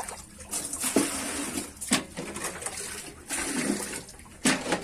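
Water splashing and sloshing as buckets scoop water out of a small pond: four or five separate splashes at uneven intervals.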